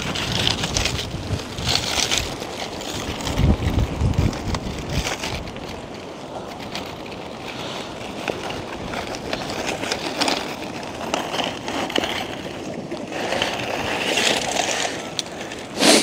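Strong gusty wind buffeting the microphone, with a heavy rumbling gust a few seconds in, and the rustle and flap of a wet tent's fabric being gathered up by hand.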